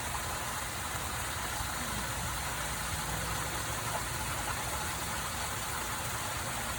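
Rainwater rushing steadily along the gutter and down into a storm drain, a constant even rush with a low rumble underneath.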